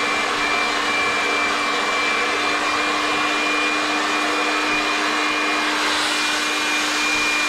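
Hair dryer with a comb attachment blowing steadily: an even rush of air with a low hum and a thin high whine.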